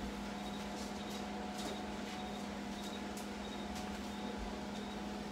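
A steady low hum, like a household appliance running, with a few faint light clicks scattered through it.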